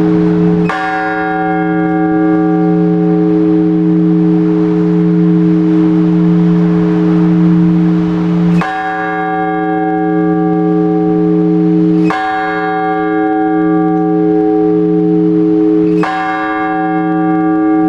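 A single large Orthodox church bell struck four times at a slow, measured pace, several seconds between strokes, each stroke leaving a long, deep hum that rings on into the next. This is the blagovest, the slow single-bell toll that calls the faithful to the all-night vigil.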